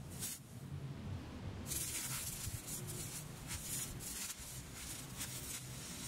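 Faint hissing and crackling of a homemade carbon-electrode electric arc as steel wire is held in it and melts, throwing sparks. The hiss dips for about a second near the start, then returns.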